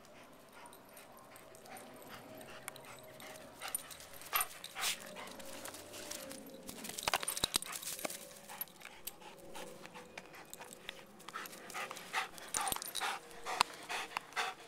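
A dog running and fetching a Frisbee: its footfalls rustle through dry leaves and grass. Near the end it comes up close, panting, with sharp clicks and knocks from the plastic disc in its mouth.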